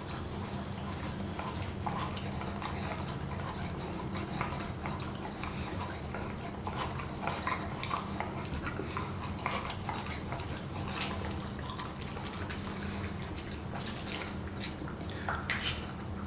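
Pomsky puppy licking and chewing food out of a stuffed rubber Kong toy: wet licks and smacks with small irregular clicks and knocks of the toy.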